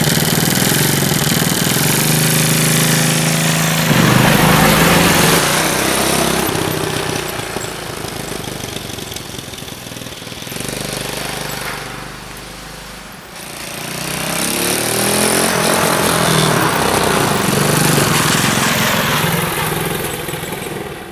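A 100cc Chinese ATV engine idling steadily, then revving up about four seconds in as the quad pulls away. The engine sound fades with distance, swells again with rising and falling pitch as it revs, and dies away near the end.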